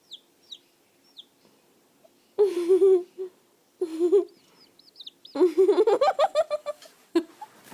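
Chickens calling: faint short high chirps at first, then two wavering calls and, about halfway through, a quick run of cackling notes.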